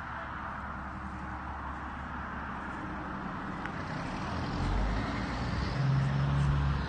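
Straight-piped Caterpillar 6NZ (3406E) inline-six diesel of a Kenworth W900L truck approaching, its low exhaust drone at a steady pitch growing louder over the last couple of seconds as it nears.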